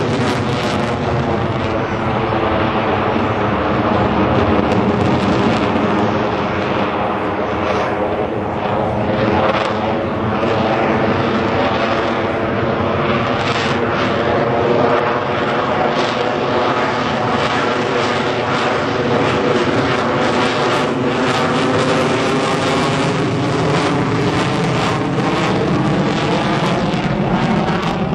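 Lockheed Martin F-22 Raptor's twin Pratt & Whitney F119 turbofan jet engines, a loud, steady jet roar as the fighter manoeuvres in the air. A slow phasing shift sweeps through its tone.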